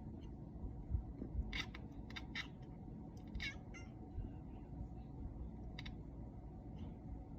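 Pet cat making short, high, sharp chirping calls while watching out of a window. Several come in quick succession about two seconds in, followed by a falling call and a few single ones later.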